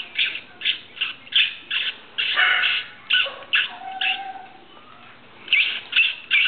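A confined puppy yelping and crying, unhappy at being shut in: short high-pitched yelps come two or three a second, with a drawn-out lower whine about four seconds in. After a short pause the yelping starts again near the end.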